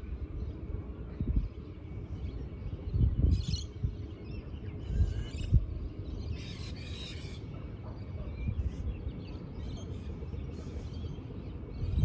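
Birds calling at intervals, with short high calls about three and five seconds in and the longest, chattering call around six to seven seconds in, over a steady low rumble of wind on the microphone.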